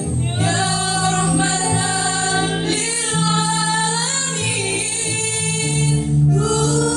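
A choir of young women singing a slow song in long held notes, with a low steady accompaniment underneath.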